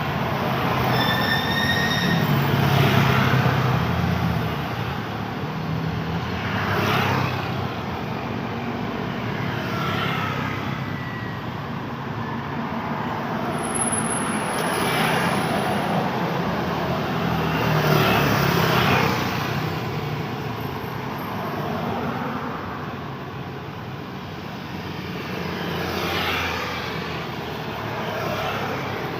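Continuous road traffic, with cars and motorcycles passing one after another. About six louder passes swell and fade over a steady hum of traffic. There is a short high whine about a second or two in.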